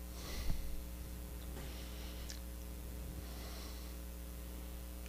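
A man breathing out audibly twice, about three seconds apart, over a steady low hum, with a faint knock about half a second in.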